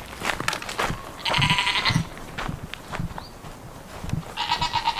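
Goats bleating: a wavering bleat about a second in and a second, steadier one near the end.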